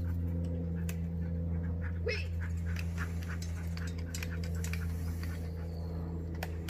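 A steady low hum with evenly spaced overtones, typical of a motor or electrical device running, with scattered faint clicks and a brief higher sound about two seconds in.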